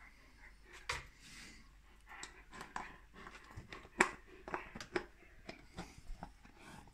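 Irish wolfhound gnawing a bone held out in a hand: irregular clicks and scrapes of teeth on bone, loudest about a second in and again at about four seconds.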